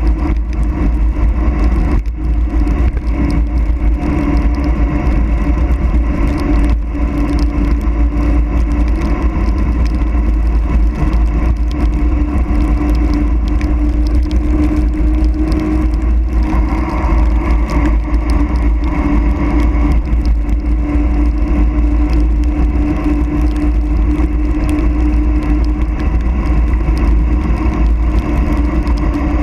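Steady wind rush buffeting the microphone and tyre noise on asphalt during a fast mountain-bike descent, with a steady hum underneath.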